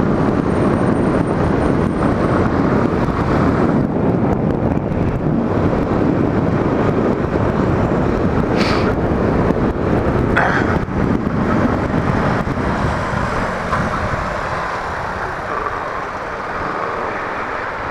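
Yamaha Fazer 250 motorcycle riding along, its single-cylinder engine running under a dense rush of wind and road noise on a helmet-mounted microphone. It quietens somewhat near the end.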